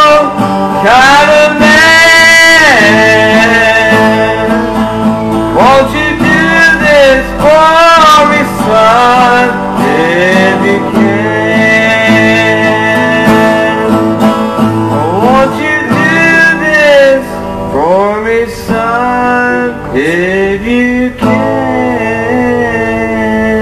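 A man singing a slow country-style song over guitar accompaniment, with long held and sliding notes. About 21 seconds in, the voice stops and the guitar chords carry on alone.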